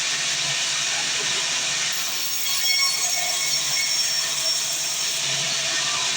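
Manual band sawmill running steadily, giving a continuous even hiss with a faint high whine.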